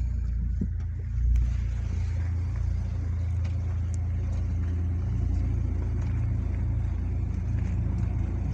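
Car cabin noise while driving: a steady low engine and road rumble, with a brief louder bump about a second in, after which the hiss of the tyres on the road comes up.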